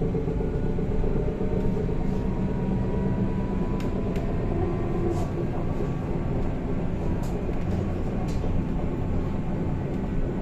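Interior of a BKM 321 trolleybus under way: a steady ride rumble with a faint electric whine, and a few short clicks and rattles from the body.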